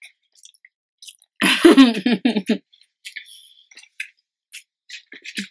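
A woman's brief untranscribed vocalisation, a held note breaking into a few short pulses about a second and a half in, followed by scattered soft mouth clicks and smacks of chewing.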